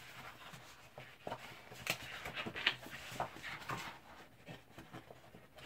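Sheets of patterned scrapbooking paper rustling and sliding against each other as they are leafed through and lifted, with a few short crackles near the middle.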